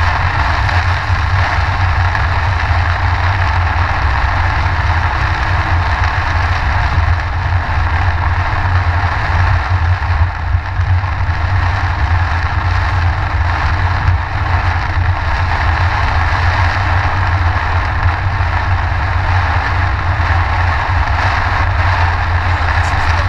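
Steady road and engine rumble heard inside a car driving through a heavy downpour, with rain hitting the windshield and roof.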